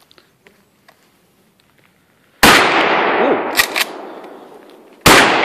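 Two pump-action shotgun blasts about two and a half seconds apart, the first about two and a half seconds in, each with a long echoing tail that fades away. Between them come two quick clacks as the pump is worked to chamber the next shell.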